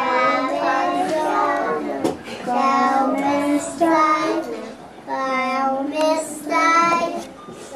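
A group of preschool children singing a welcome song in Italian together, in phrases of about two seconds with short breaks between them.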